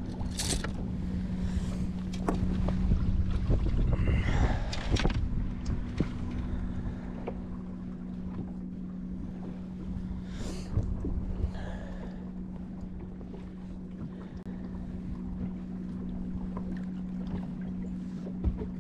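Steady low hum from the bass boat, with wind rumble on the microphone and scattered small clicks and rustles as a bass is unhooked in a landing net.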